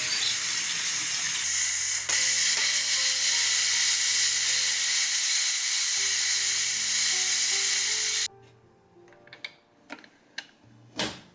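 A loud steady hiss of kitchen cooking or washing, with background music, growing slightly louder after a click about two seconds in. It cuts off abruptly about eight seconds in, followed by a few light clicks and clatters.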